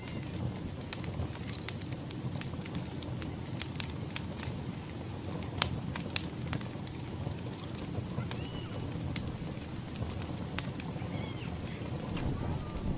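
Wood fire burning with steady crackling and frequent sharp pops.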